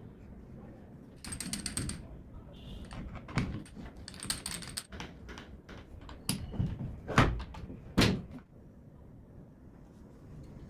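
Handling noises: a short metallic rattle twice, scattered knocks, then two louder thumps a little under a second apart; no motor running.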